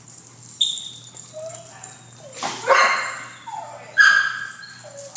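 Several dogs barking and yipping in short separate calls, the loudest about two and a half seconds and four seconds in.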